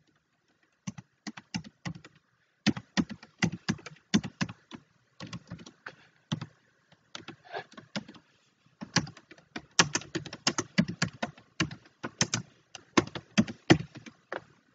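Computer keyboard being typed on: quick, irregular runs of key clicks with short pauses between them.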